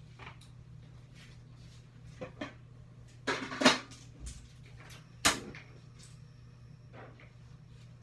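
Kitchen clatter from cooking: a few knocks, a short rattle about three seconds in, then a sharp knock a little after five seconds, over a steady low hum.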